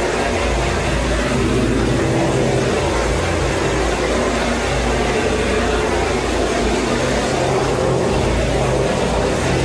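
Handheld gas torch burning steadily, a constant hiss with a low rumble, as its flame is swept over freshly spread epoxy resin floor coating.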